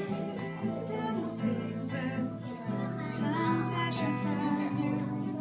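A singer performing a song to strummed acoustic guitar accompaniment.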